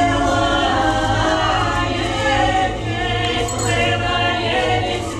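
A veterans' choir singing slow, held notes in several parts, over a steady low hum.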